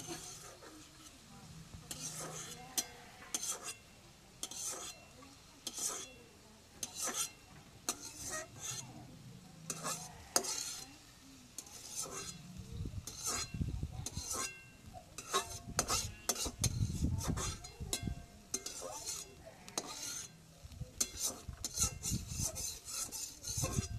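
A spoon or ladle stirring and scraping food in a cooking pot in irregular strokes, with a light sizzle. Low dull bumps join in over the second half.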